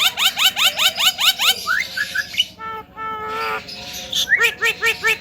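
Javan myna calling: a fast run of short rising notes, a brief stretch of a different, harsher sound around the middle, then a run of repeated arched notes.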